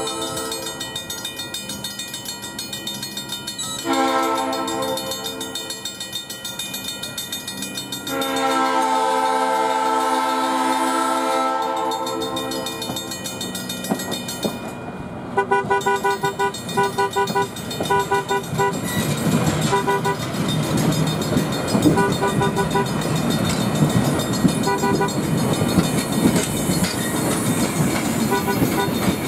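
Train horn sounding long blasts for a grade crossing, the last and loudest ending about twelve seconds in. A bell then rings rhythmically for a few seconds, and the rumble of the shoving train swells as it nears and crosses the road.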